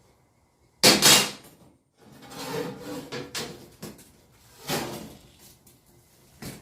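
Workshop handling noise while steel angle is measured and marked: a loud scrape about a second in, then irregular rubbing and scraping, another scrape near five seconds and a short click near the end.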